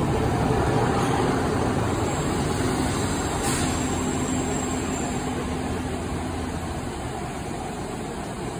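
Northern Sprinter diesel multiple unit's underfloor diesel engine running as the train pulls away along the platform, the sound slowly fading. A brief sharp noise comes about three and a half seconds in.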